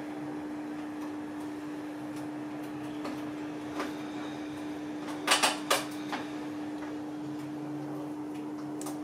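Knife and baked potato knocking and clicking on a plastic cutting board as the potato is set down and cut in half: a few short knocks, loudest in a quick cluster about five seconds in. A steady low hum runs underneath.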